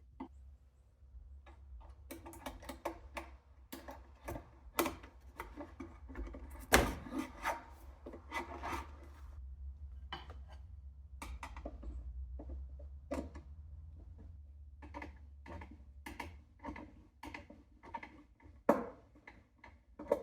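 Hand work with tools and materials: many sharp clicks and knocks with rubbing and scraping between them. A loud knock comes about seven seconds in and another near the end.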